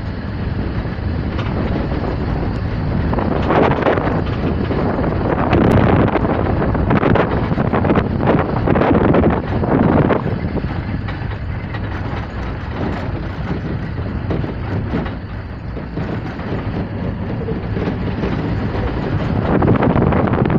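A vehicle driving along an unpaved dirt road: a steady noise of engine and tyres on the loose surface, swelling louder several times.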